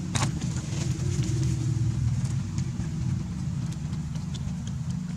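A steady low rumble, with a few faint, short clicks scattered over it.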